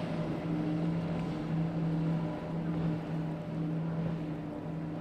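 Motorboat engine running at a steady pitch, with water and wind noise around it.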